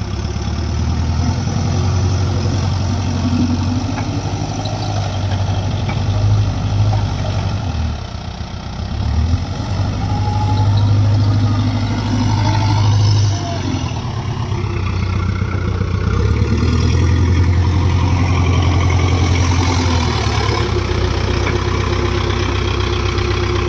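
Diesel engines of a JCB backhoe loader and a tractor running while mud is loaded. The low engine drone swells and eases several times as the machine works, dipping briefly about eight seconds in.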